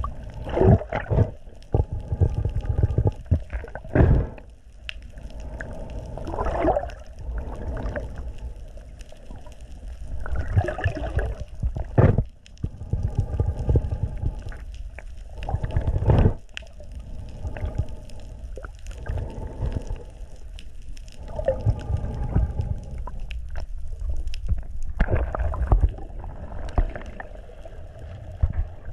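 Muffled underwater water noise from a submerged action camera: irregular surges of sloshing and gurgling every few seconds, with a few sharp clicks.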